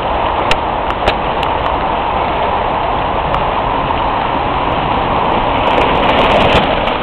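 Steady hiss of rain falling in the trees. About five and a half seconds in, a mountain bike comes close, its tyres crackling over the dirt trail and leaf litter for about a second.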